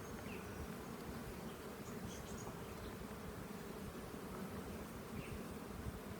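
Many honey bees buzzing at an open hive, a steady, dense hum.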